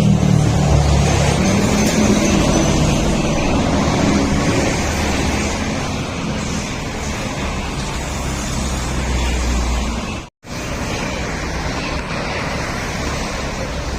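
Motorcycle engine running through an aftermarket M4 exhaust muffler, a steady loud exhaust note that eases slightly in the first few seconds. The sound cuts out completely for a moment about ten seconds in.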